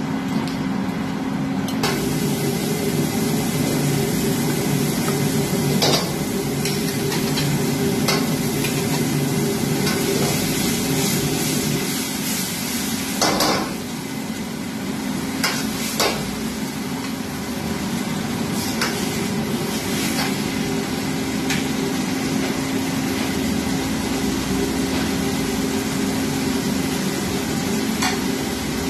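Chilli chicken sizzling as it is stir-fried in a wok over a gas flame, over a steady low hum. The sizzle strengthens about two seconds in, and the ladle knocks and scrapes against the wok a few times, loudest about halfway through.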